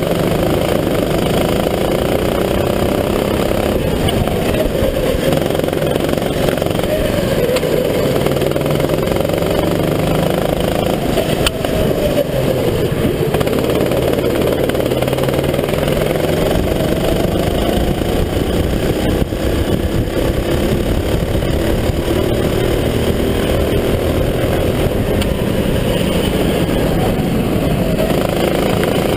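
Kart engine running under load, heard from an onboard camera, its revs rising and falling over and over as the kart laps.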